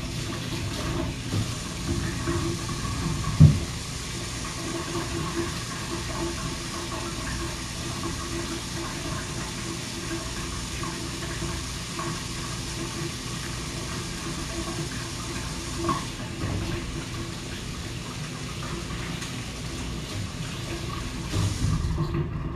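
Water running steadily from a tap, shut off near the end. A single knock about three and a half seconds in.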